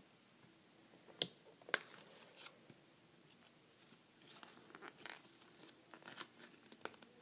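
A plastic toy-putty container and its packaging being handled and pried at while trying to get it open: two sharp clicks about half a second apart, then faint crinkling and rustling.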